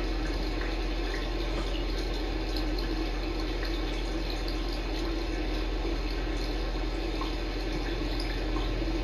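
Steady rushing background noise with a low hum, unchanging throughout: room or equipment noise picked up by the camera's microphone.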